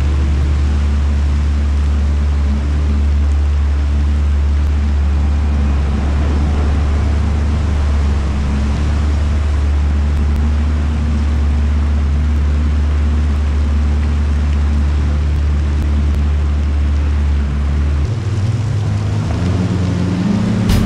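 Yamaha jet ski running under way, a steady engine drone over rushing water and spray. In the last few seconds the drone's pitch shifts and climbs.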